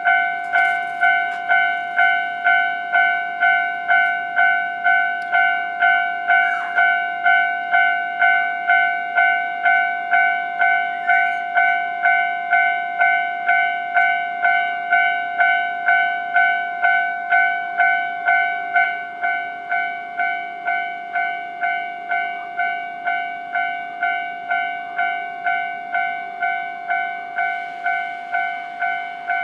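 Japanese railway level-crossing warning bell ringing its repeated ding-ding, about two strikes a second, each a clear ringing tone. It becomes somewhat quieter about two-thirds of the way through, and a hiss of the approaching train comes in near the end.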